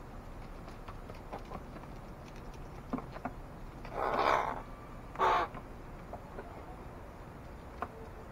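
American crow cawing twice, a longer harsh caw about four seconds in and a shorter one just after, with a few faint clicks.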